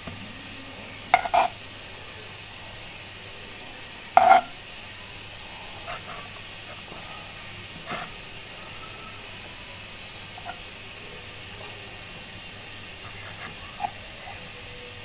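Kitchen knife cutting the crusts off a slice of white bread on a wooden board, with short knocks of the blade on the board about one and four seconds in, over a steady hiss.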